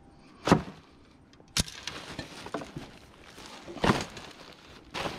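Household rubbish being shifted by hand on a kerbside pile: a handful of separate knocks and crinkles, the sharpest about one and a half seconds in, and plastic rustling as a full garbage bag is grabbed near the end.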